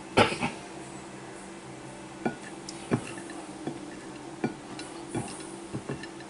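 Plastic spatula tapping and scraping on a ceramic plate as it knocks wet spaghetti squash seeds off: a string of sharp clinks, the loudest just after the start, then one every half second to a second.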